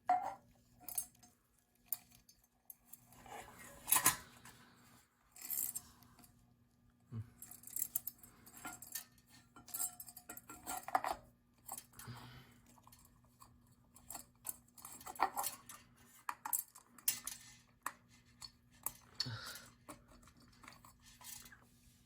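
Small metal ceiling-fan parts being handled: irregular clinks, clicks and rattles as pieces are worked loose and set down, over a faint steady low hum.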